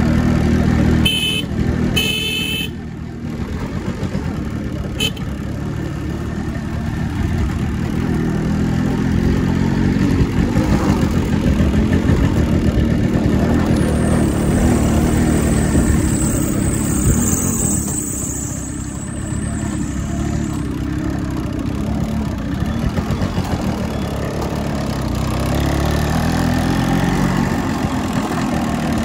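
Motorcycle engine running while riding along a rough road, its note rising and falling with the throttle, with two short horn beeps about one and two seconds in.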